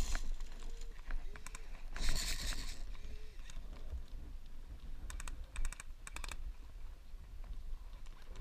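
Airsoft guns firing three short rattling bursts of rapid clicks in quick succession, about five to six seconds in, with a brief rustle a couple of seconds in.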